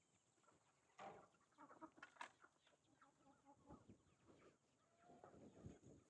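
Chickens clucking faintly, a handful of short calls scattered through.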